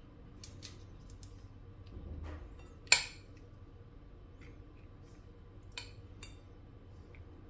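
Metal spoon clinking against a ceramic bowl while scooping pork pieces: one sharp clink about three seconds in and a couple of lighter taps near the end, with faint handling sounds in between.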